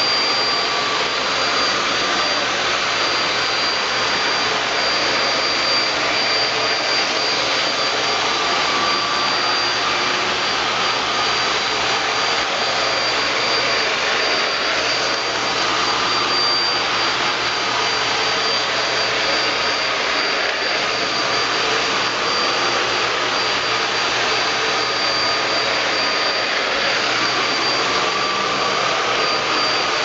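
A 500-watt Eureka Flash corded stick vacuum running steadily with its motorized brush-roll nozzle on the faster second setting, passed back and forth over a floor mat. A steady rush of air carries a thin high whine, with a fainter lower tone that comes and goes.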